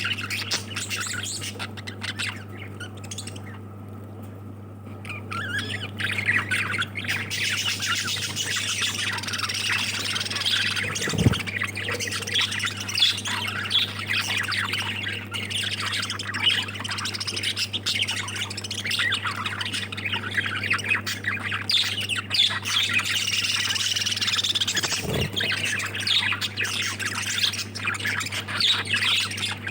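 A group of lovebirds chattering and squawking continuously, easing off for a few seconds near the start. A steady low hum runs underneath, and there are two dull thumps, about 11 and 25 seconds in.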